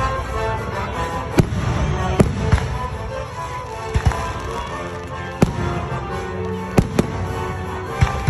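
Aerial firework shells bursting overhead: about ten sharp bangs at irregular intervals, some in quick pairs, over music playing throughout.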